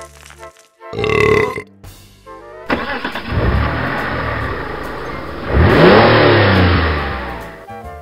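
A short comic burp sound effect about a second in. Then, from about three seconds in, a racing-car sound effect builds, passes by loudest about six seconds in with its engine pitch falling, and fades out.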